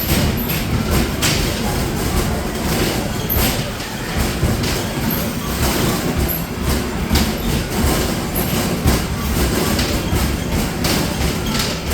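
Continuous clatter of basketballs striking the backboard and rim of an arcade basketball machine and rolling back down its return ramp during rapid shooting, many irregular thumps.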